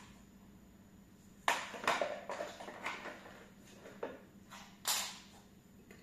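Robot vacuum parts being handled and washed in a plastic basin of water: a string of short clicks, knocks and rustles, the sharpest about a second and a half in, with a brief splashy swish about five seconds in.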